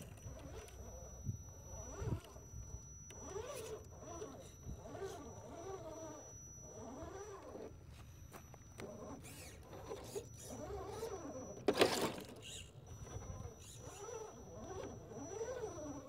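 Electric motor and gear whine of a 1/10-scale RC rock crawler, rising and falling in pitch with each burst of throttle as it climbs a rock face. A sharp knock stands out about twelve seconds in.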